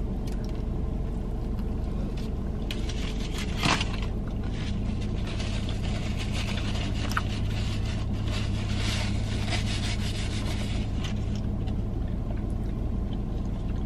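Quiet chewing of a cheeseburger over the steady low hum of a car cabin, with a short sharp rustle about four seconds in.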